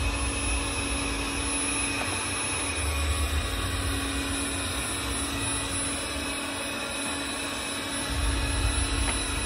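Hobot window-cleaning robot running on a glass pane: its suction fan makes a steady whir with a steady hum as the robot crawls across the glass.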